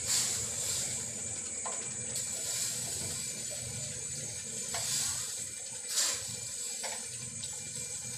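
Whole tulingan (small tuna) being dropped by hand into water in a stainless steel wok: several small splashes over a steady hiss.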